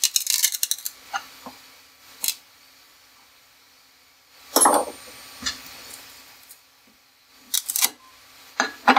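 Hard clicks and scrapes of a metal-shafted tool prying a 3D-printed PETG mold half off the printer's build plate, a quick clatter at the start, then scattered taps and knocks as the plastic part is worked loose and handled.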